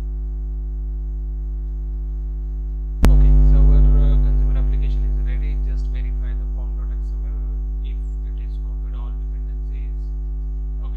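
Steady electrical mains hum on the recording. About three seconds in a sharp click sounds and the hum swells louder, then slowly settles back over a few seconds, with faint small ticks scattered after it.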